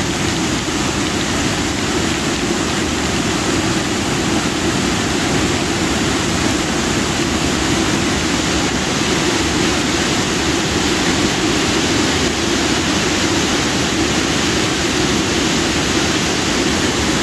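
Steady rushing of a river in flash flood (kepala air), fast high water pouring around boulders.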